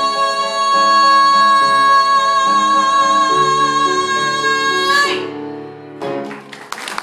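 A woman sings one long, high final note of a song for about five seconds over piano chords that change underneath it. The note breaks off about five seconds in, the piano closes on a last chord, and applause starts near the end.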